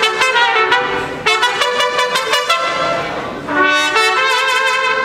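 Two mariachi trumpets playing unaccompanied in harmony: a run of short, separated notes, then longer held notes from about three and a half seconds in.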